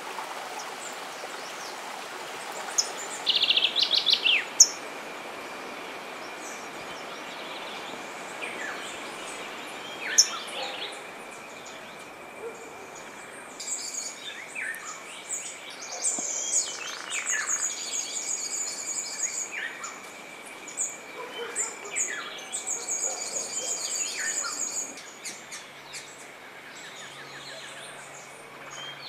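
Several wild birds calling and singing: short chirps, downward-sliding whistles and rapid high trills, with a loud run of quick chirps a few seconds in. A steady thin high tone and an even hiss of outdoor ambience run beneath them.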